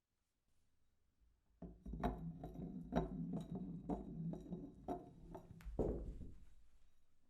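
Glass beer bottle rolling on a hard surface: a low rumble with irregular clicks and knocks and a faint glassy ring, ending in a louder knock near the end and then fading away.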